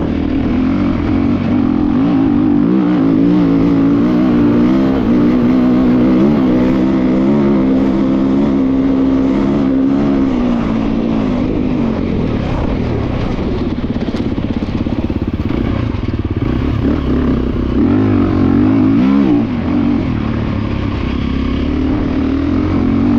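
2024 Gasgas EC350F enduro bike's 350 cc four-stroke single-cylinder engine running hard under load, its revs rising and falling continually with throttle and gear changes.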